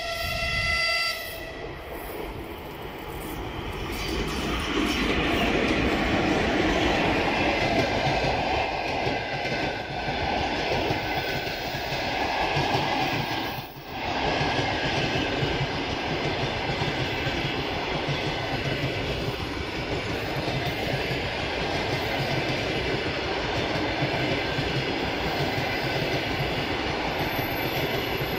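ChS7 electric locomotive sounding its horn in one short, high blast of about a second. The locomotive and its long passenger train then roll past with a loud, steady rumble and the clatter of wheels over the rails.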